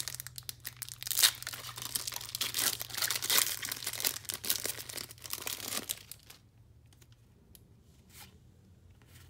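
Foil wrapper of a Terminator collectible card game booster pack being torn and peeled open: dense crinkling and ripping that dies down about six seconds in, followed by a few light clicks as the cards are handled.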